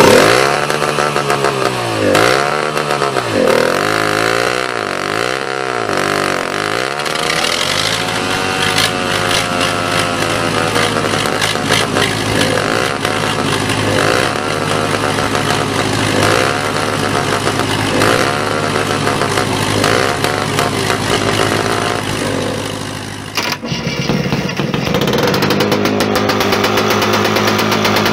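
The small two-stroke petrol pony starting engine of a DT-75 crawler tractor starts up suddenly and runs fast, its pitch dipping and recovering about once a second at first, then more slowly. About 23 seconds in the sound changes abruptly to another engine running steadily.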